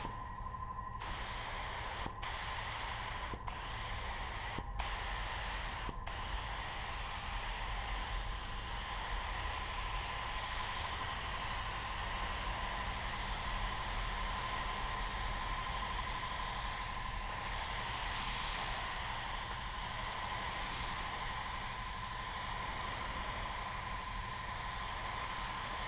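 Gravity-feed paint spray gun hissing as it sprays paint. The hiss breaks off briefly a few times in the first six seconds as the trigger is let go between passes, then runs on steadily.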